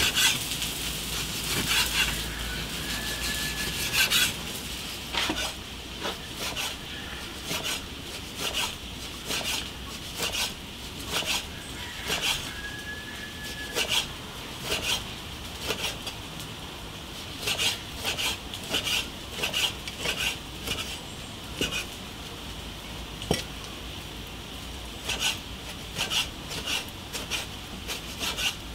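Kitchen utensils and dishes clinking and knocking in irregular strokes, about one or two a second, during food preparation.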